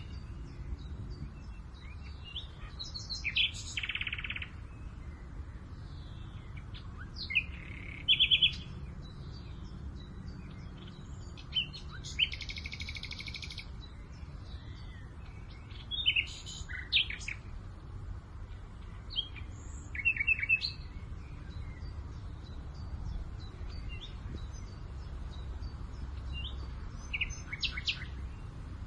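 Several wild birds calling and singing on and off, short chirps and quick trills of repeated notes every few seconds, with one buzzy trill about twelve seconds in. Under them runs a steady low rumble of wind.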